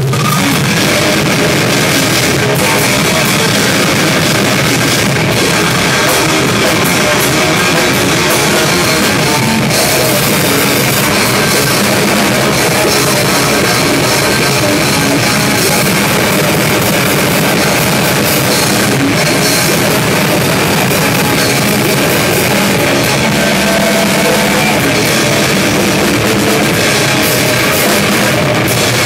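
Live heavy rock band playing loud: drum kit with crashing cymbals and distorted electric guitar, the full band coming in at the very start and running steadily on.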